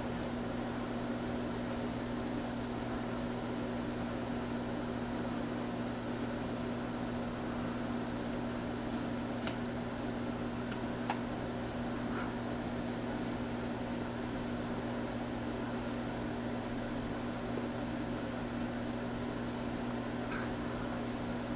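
Steady low hum with an even hiss over it, like a running fan or appliance, unchanging throughout. A few faint ticks come around the middle and once near the end.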